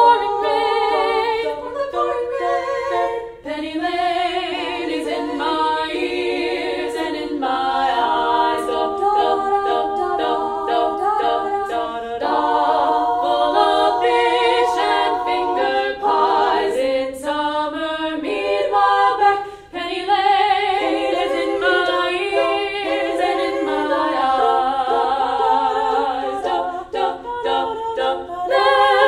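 Female vocal quartet singing a cappella in harmony, four women's voices with no instruments. The singing breaks off briefly twice, a few seconds in and near the middle.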